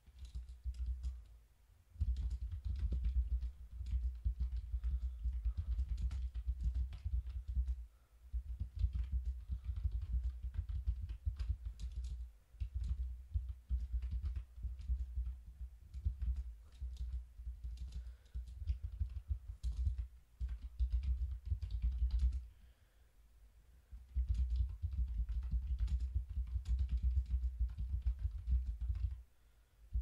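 Typing on a computer keyboard in runs of several seconds with short pauses between them, the keystrokes coming as quick clicks over a deep thud.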